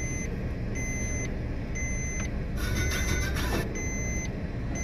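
Diesel engine of a tracked JCB excavator running under load as it digs, a steady low rumble. Over it a machine's warning alarm beeps about once a second.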